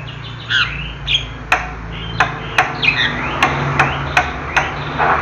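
Javan myna calling: harsh squawks and short sliding whistles, then a run of sharp clicking notes about two or three a second, over a steady low hum.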